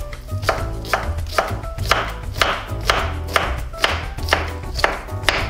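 Chef's knife chopping red onion on a wooden cutting board, an even rhythm of about two knife strikes a second, with background music underneath.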